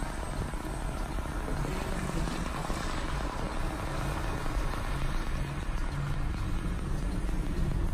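Steady low engine rumble of a vehicle with a low throbbing hum, heard from inside a car's cabin.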